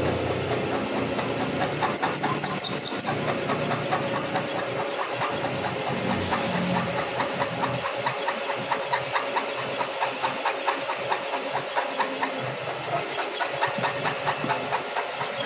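Milling machine drilling a hole through a steel hammer head with a large drill bit, about 1 inch. A steady hum runs throughout, with regular ticking from the bit cutting, and a brief high squeal about two seconds in.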